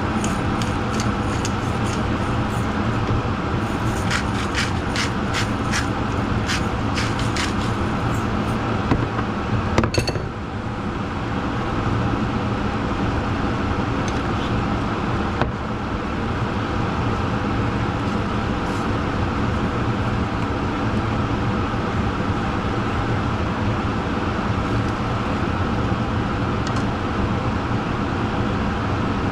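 Steady running noise of a vehicle, engine hum and rushing road noise, with a run of light clicks a few seconds in.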